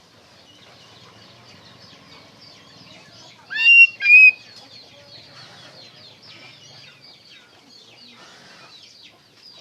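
Oriental magpie-robin (kacer) singing: two loud, clear whistled notes with rising sweeps about a third of the way in, over a continuous chatter of faint, quick bird chirps.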